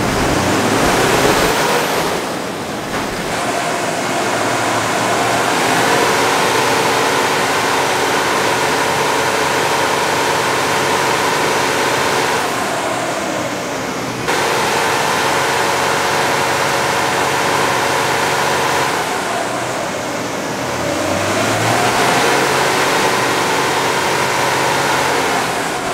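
Turbocharged Toyota 1HZ straight-six diesel held under load on a chassis dyno at about 2,800 rpm, with a steady rush of noise over the engine note. It eases off briefly twice, about halfway through and again about two-thirds through, while the boost is being set to about 12 psi.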